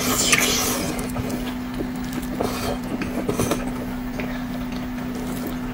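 Close-up eating sounds from someone eating hot food: a loud noisy mouth sound at the start, then scattered chewing noises about two and a half and three seconds in, over a steady low hum.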